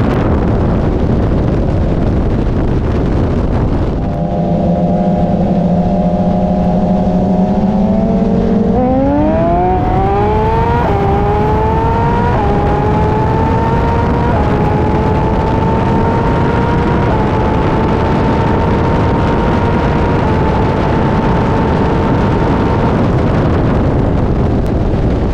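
BMW S1000RR inline-four sport-bike engine holding a steady roll, then opened up about nine seconds in for a full-throttle roll-race run. Its pitch climbs sharply and steps through several upshifts, under heavy wind rush.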